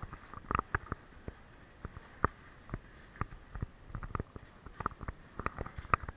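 Irregular knocks, clicks and scrapes of a caver squeezing through a tight rock crawl: helmet, gear and suit bumping and rubbing against the rock close by.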